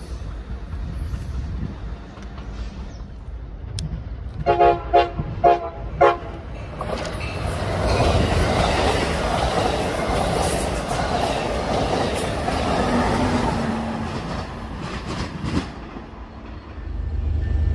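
Amtrak Pacific Surfliner train sounding four short horn toots, then passing close by with a steady rush of wheels on rail that cuts off fairly suddenly about fifteen and a half seconds in. A low rumble rises near the end.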